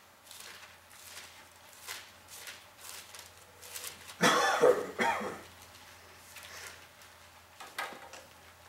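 A person coughs twice in quick succession about halfway through. Soft rustling of Bible pages being turned comes and goes around it.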